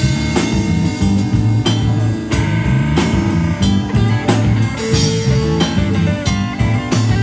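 Blues-rock band playing an instrumental break without vocals: a walking low bass line under a drum kit with frequent cymbal hits, and a held guitar note about five seconds in.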